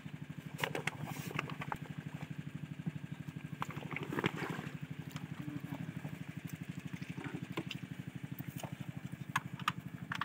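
Red single-cylinder diesel engine of a pond water pump running steadily, an even chug of several beats a second. A few short knocks and clatters sound over it, the loudest about four seconds in.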